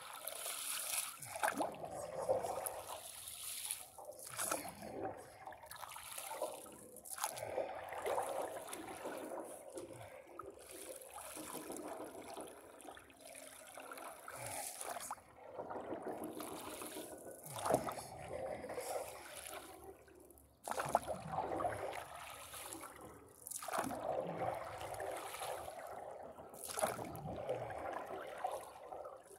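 A paddle stroking through lake water beside a paddleboard: splashing and dripping at each stroke, the strokes coming irregularly a few seconds apart, with water trickling and sloshing against the board in between.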